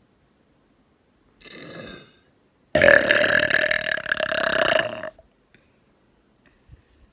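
A single long, loud burp lasting about two seconds, made close to the microphone. About a second before it comes a shorter, fainter breathy sound.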